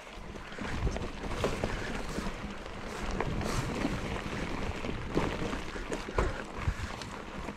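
Trek Fuel EX 7 full-suspension mountain bike ridden over a rough trail: a steady rolling noise from the tyres, with frequent small knocks and rattles from the bike, and wind on the microphone.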